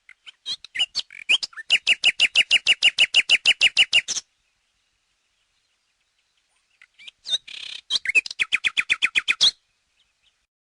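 Common nightingale singing two phrases a few seconds apart. Each phrase builds into a fast run of repeated notes, about eight a second; the second phrase has a short harsh buzz before its run.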